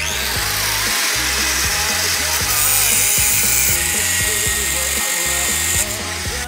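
Angle grinder grinding on iron bar, a loud high hiss that shifts in tone partway through and stops near the end, over background music.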